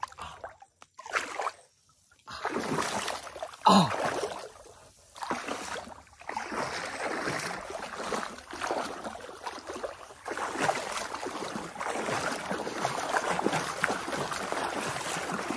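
Shallow creek water sloshing and splashing around a person wading through it, in quick irregular splashes, with a louder splash about four seconds in.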